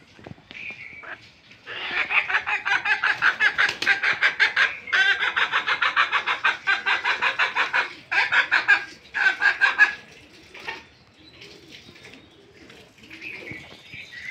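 Chicken clucking loudly and fast, about five clucks a second, from about two seconds in until about ten seconds in with a few short breaks; softer, scattered clucks follow near the end.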